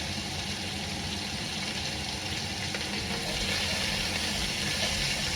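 Onions and tomatoes sautéing in hot oil in a Dutch oven: a steady frying sizzle.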